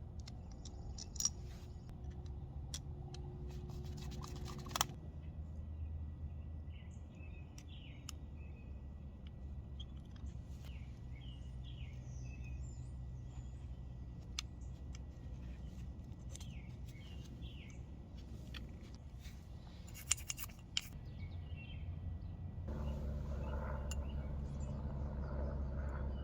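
Small birds chirping repeatedly, with a few sharp clicks of small parts being handled and a steady low rumble underneath. A louder steady rushing noise starts about 23 seconds in.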